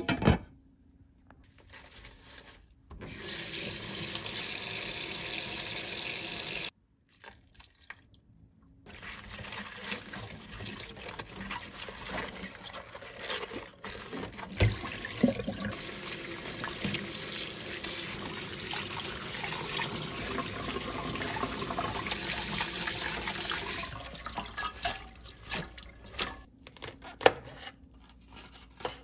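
Kitchen tap running and water splashing in a stainless steel sink as a cabbage and perilla leaves are washed by hand in a bowl of water. In the last few seconds come short clicks and taps of a knife trimming cabbage leaves on a cutting board.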